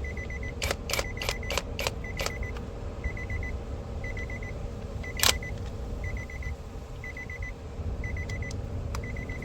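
A car's warning chime beeping steadily, a quick group of four high beeps about once a second. A run of about six sharp clicks comes in the first couple of seconds and a single click about five seconds in.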